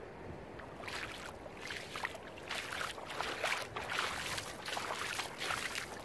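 Footsteps on a beach, about two steps a second, starting about a second in.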